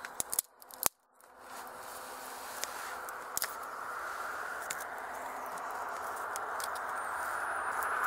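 Dry sticks clicking and snapping as they are handled and laid onto a small campfire: a few sharp clicks in the first second, then scattered single clicks. Under them a steady hiss grows gradually louder.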